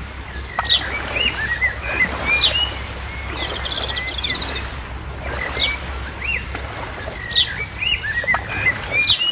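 Birdsong: short chirps and quick falling whistles repeated every second or two, with a brief rapid trill near the middle, over a steady low rumble.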